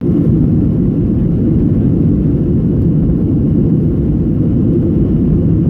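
Steady low rumble of a Boeing 737's engines and airframe, heard inside the passenger cabin on takeoff.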